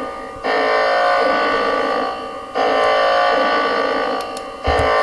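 Electronic alarm buzzer sounding in repeated blasts. Each harsh buzz lasts nearly two seconds, with a short gap before the next, and a new blast begins about every two seconds.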